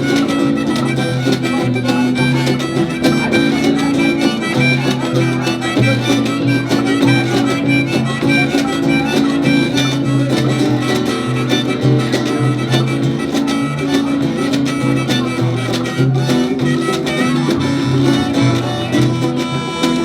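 Live band playing an instrumental break between verses of an upbeat song, over a steady, rhythmic bass line.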